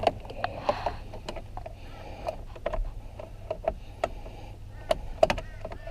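Irregular light clicks and taps of a T30 Torx tool working against the steering wheel's plastic trim while reaching for the driver airbag's retaining screw, over a steady low rumble.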